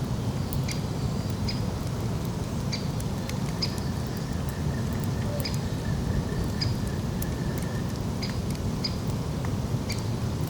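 Campfire crackling: scattered sharp pops and snaps over a low steady rumble.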